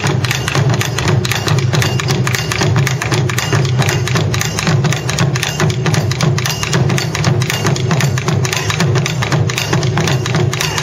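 Taiko ensemble playing: several barrel drums (chū-daiko) on slanted stands struck together with sticks in a fast, unbroken rhythm of deep booming strokes.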